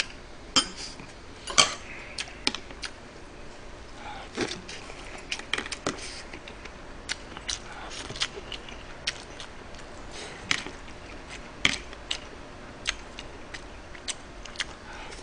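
Eating at the table: a metal spoon clicking and scraping against bowls and dishes, with chewing, heard as many sharp, irregular clicks.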